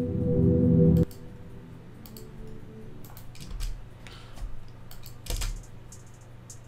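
A dark synth pad chord plays for about a second and cuts off sharply. Then come scattered computer mouse clicks and keyboard taps, with a few faint low thumps.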